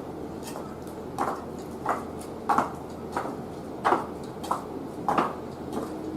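Footsteps in geta, Japanese wooden clogs, knocking on a hard surface at an unhurried walking pace, about one step every two-thirds of a second, over a steady low background noise.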